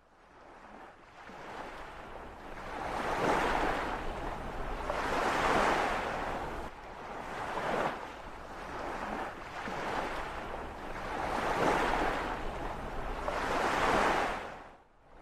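Sea waves washing in, a rushing noise that swells and falls back every few seconds.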